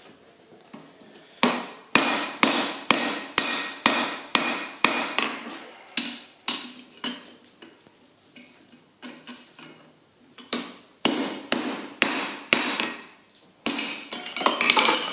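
Hand hammer striking hot steel held in tongs on an anvil, bending the piece. The blows come in runs of about two or three a second, with a ringing after each; the runs stop for a few seconds of lighter knocks about halfway, then pick up again twice.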